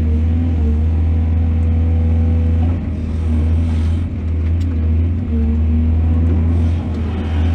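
Excavator's diesel engine running steadily under load, a deep continuous hum with a droning tone above it, dipping briefly several times.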